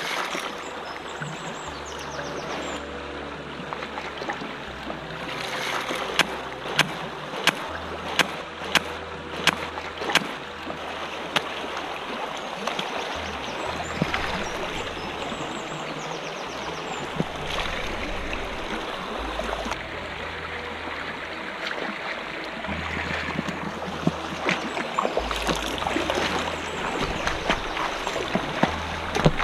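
River water flowing over rocks: a steady rush. Low sustained music notes run under it, and a run of sharp clicks comes between about six and eleven seconds in.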